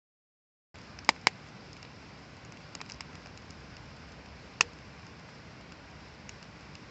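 Wood fire crackling over a steady hiss, with two sharp pops about a second in, a few smaller crackles, and another sharp pop past halfway.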